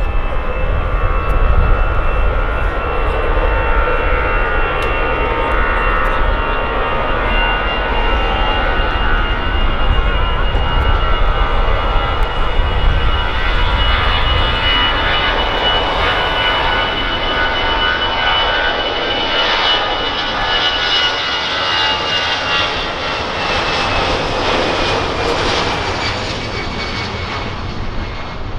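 Airbus A320's twin jet engines at takeoff thrust during the takeoff roll: a loud, steady rush of engine noise with a high whine. The whine falls in pitch as the aircraft passes and rotates near the end.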